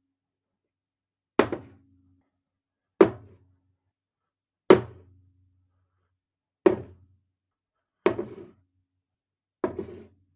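A glass cup is brought down onto a table six times, about one and a half seconds apart. Each is a sharp clunk that dies away quickly, with silence in between.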